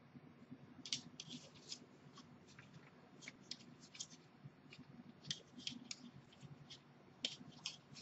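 Faint, irregular clicks, often in quick pairs or threes, from buttons or controls being pressed while the picture settings are adjusted by hand.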